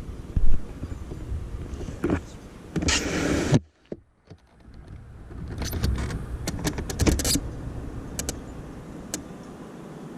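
Wind gusts buffeting the microphone as a low rumble with thumps, and a burst of hiss about three seconds in. After a brief drop-out there is a run of sharp clicks and knocks.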